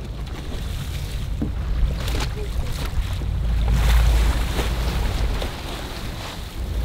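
Steady low rumble of a sportfishing boat's engine under wind and rushing sea, with water splashing against the hull as a hooked yellowfin tuna is brought alongside, loudest about four seconds in. A few sharp knocks in the first two seconds.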